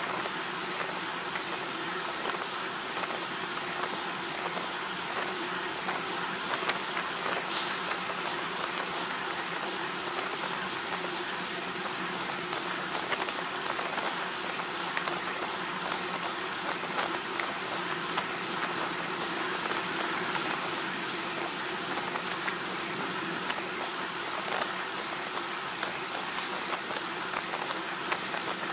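A motor vehicle running steadily on the move, its engine note under constant road and wind noise, with a brief sharp hiss about seven and a half seconds in.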